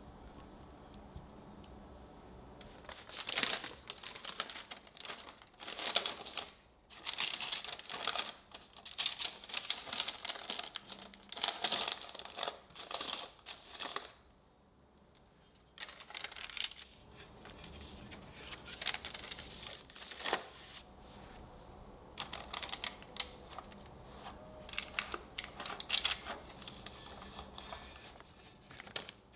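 Parchment paper crinkling and rustling in irregular bursts as it is pressed and folded into a baking dish to line it, with a short lull about halfway.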